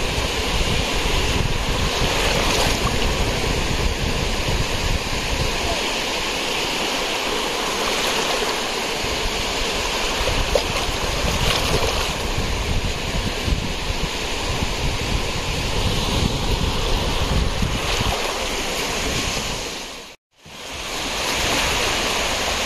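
Sea waves washing on the beach, with wind rumbling on the microphone. The sound cuts out completely for a moment near the end.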